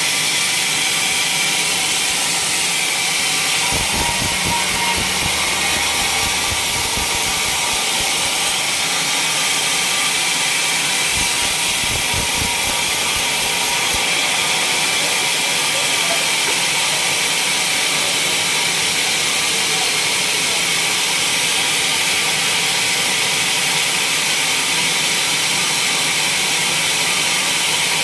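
Sawmill saw cutting through waru gunung (mountain hibiscus) timber: a steady, loud, hissing cut with no let-up. A few low knocks come around four and again around eleven to twelve seconds in.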